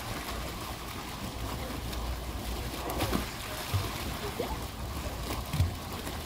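A small fountain jet bubbling and splashing steadily into its pool while a Boston terrier swims through the water beside it, over a low rumble with a few soft thumps.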